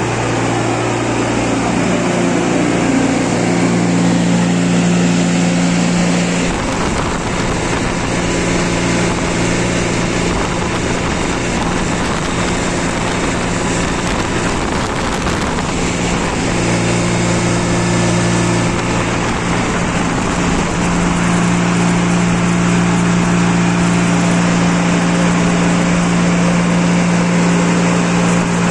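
Refrigerated shipping container's refrigeration unit running: a loud, steady machine hum with two strong low tones. The tones fade for about ten seconds in the middle, leaving a rougher noise, then come back.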